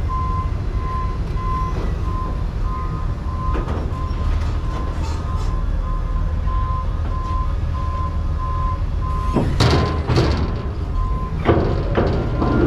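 A vehicle's reversing alarm beeps in an even on-off rhythm over a low running engine. About three-quarters of the way through, the beeping pauses as a few loud clanks and knocks sound, then starts again.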